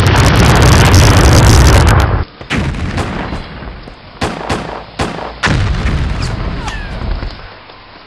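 Battle sound effects. A loud explosion rumbles for about two seconds, then a string of about seven sharp gunshots follows over the next three seconds, and the noise dies away near the end.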